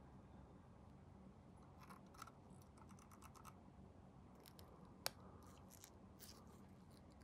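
Faint, scattered clicks and taps of small plastic model kit parts and hobby tools being handled, with one sharper click about five seconds in.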